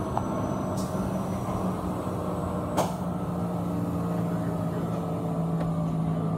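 Car wash dryer blowers running with a steady hum, heard from inside a car through a partly opened window, with a sharp click about three seconds in.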